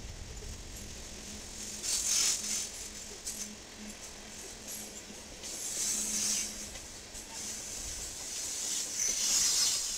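A freight train of ballast hopper cars rolling past, sped up to about three times real speed: a hissing rattle of wheels and cars on the rails. It swells about two seconds in, again around six seconds, and loudest near the end.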